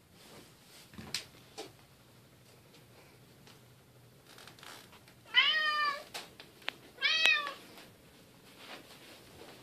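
Bengal cat meowing twice: two drawn-out meows under two seconds apart, each falling slightly in pitch. A faint tap or two come about a second in.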